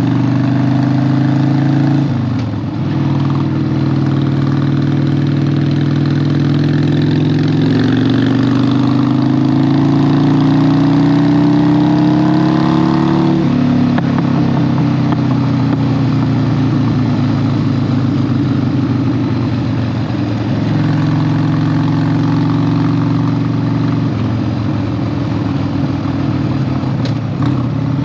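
Harley-Davidson 1200 V-twin motorcycle engine running under way. It holds steady, dips briefly about two and a half seconds in, then rises in pitch as it accelerates from about eight seconds in. The pitch drops suddenly at about thirteen and a half seconds as it shifts up, and the engine then runs steadily again.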